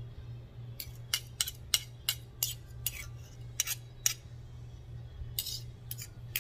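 Metal fork clinking and scraping against a stainless serving spoon while pushing a thick dressing off it into a bowl: a quick run of about a dozen sharp clicks from about a second in, then a few more near the end.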